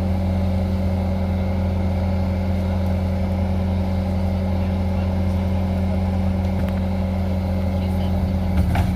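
Bulldozer's diesel engine running steadily at a constant speed, with a deep, even hum. A brief knock sounds near the end.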